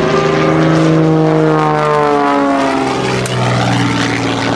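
Staudacher S-300 aerobatic plane's engine and propeller running hard during an aerobatic routine, the note sliding steadily down in pitch and dropping lower about two to three seconds in.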